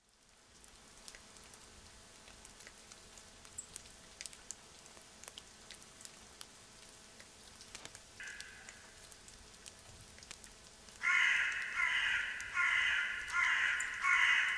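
Light rain pattering, with scattered drips. A crow caws once about eight seconds in, then gives a run of about five harsh caws near the end, the loudest part.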